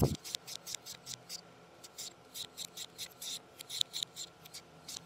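Green papaya being shredded with a hand-held papaya shredder. The blade rasps across the fruit in quick, regular strokes, several a second.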